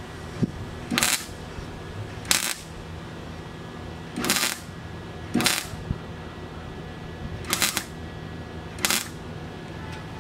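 Resistance spot welder with long tong arms firing six short crackling weld pulses, one every one to two seconds, as it joins a sheet-metal patch panel to an old car body panel.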